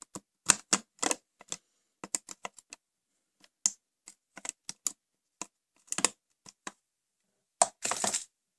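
Irregular clicks and taps of a metal crochet hook and rubber bands against the plastic pins of a Rainbow Loom as the finished piece is worked off the loom, with a longer rustling scrape near the end.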